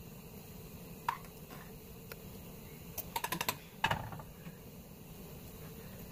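Light clicks and taps of a metal spoon and a saucepan being handled in a kitchen: a quick run of taps about three seconds in, then a heavier knock just before four seconds as the pan is set down. A faint steady hum lies underneath.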